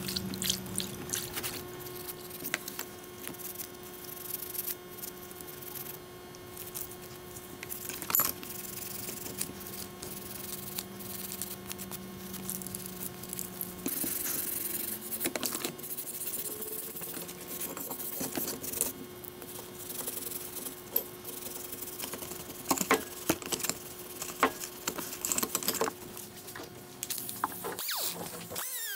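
Rusty metal parts of an antique Model T screw jack being sloshed and scrubbed by gloved hands in a plastic tub of rust-removal solution: splashing liquid, wet scraping and sharp knocks of metal here and there, over a steady hum.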